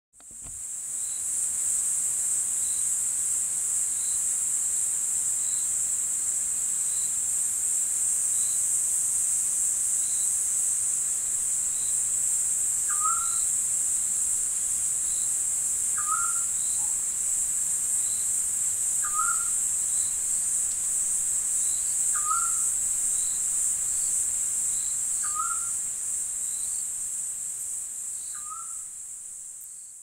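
Steady, high-pitched insect chorus in an evening woodland, fading in at the start and out near the end. From about halfway through, a bird gives a short hooked call about every three seconds, six times.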